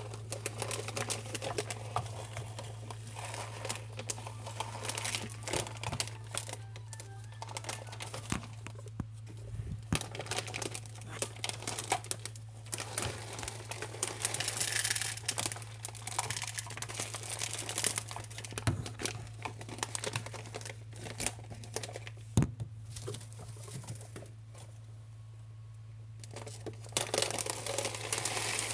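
Crinkly plastic food bag rustling and crackling irregularly as guinea pigs push about under and around it, with a steady low hum underneath. The crackling dies down for a couple of seconds near the end, then picks up again.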